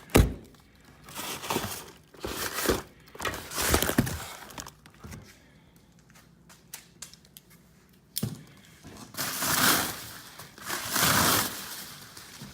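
Cardboard box and packing material being handled and pulled open: a sharp thunk right at the start, then bouts of crinkling and tearing, a quiet stretch in the middle, and more rustling near the end.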